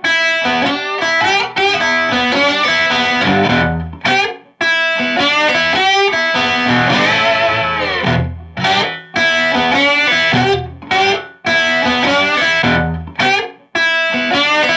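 Background music led by a plucked guitar with an effects-coloured tone, played in phrases broken by several brief pauses.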